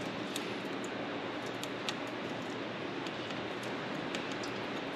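Small sharp clicks and taps of metal rivets being handled and pushed into pre-drilled holes in a clamped aluminium part, a few scattered clicks over a steady background hiss.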